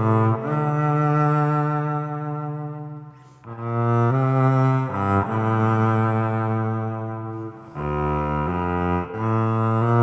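Yamaha SVC-210 silent electric cello, bowed, playing a melody of long held notes through its onboard 'church' reverb effect. The phrase breaks off briefly about three seconds in, then the playing resumes.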